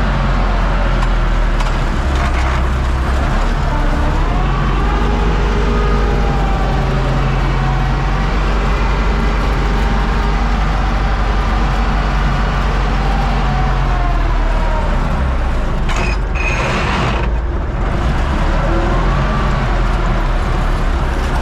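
Universal U650 tractor's four-cylinder diesel engine running steadily under load, heard from inside the cab while it pulls a Zmaj Zemun 223 corn picker. Faint whines drift up and down in pitch over the engine, and the sound dips briefly about three-quarters of the way in.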